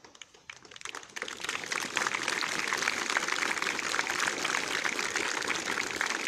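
Applause from a crowd, building up about a second in and then going on as a steady clapping.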